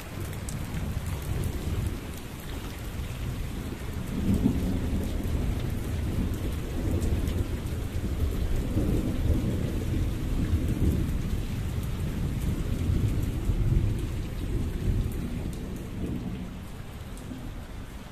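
Heavy monsoon rain falling steadily, with a long low rumble of thunder that swells about four seconds in, rolls on and fades near the end.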